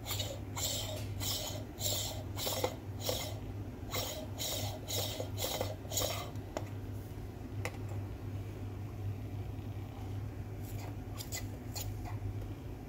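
Stainless-steel espresso distribution tool being twisted on a filled portafilter, giving about ten short metallic rasps of its base scraping through the coffee grounds and against the basket rim over the first six seconds. A few light clicks follow near the end as it is lifted or tapped.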